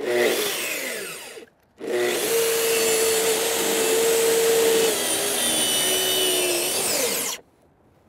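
Track saw running along its guide rail, making a 35-degree bevel cut through wooden decking boards. It runs briefly and winds down, then starts again and runs steadily for about five seconds before winding down near the end. At this bevel the blade is not quite getting through the inch-and-a-half boards.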